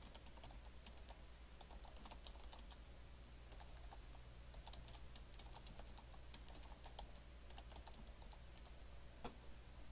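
Faint typing on a computer keyboard: a run of quick, irregular keystrokes.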